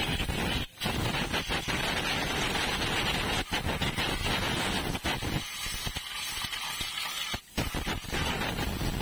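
Compressed-air blow gun hissing as it blasts dust out of a TVS Jupiter 125 scooter's open CVT belt and clutch housing. The blast stops briefly about a second in and again about seven and a half seconds in as the trigger is released, and runs thinner for a couple of seconds before the second break.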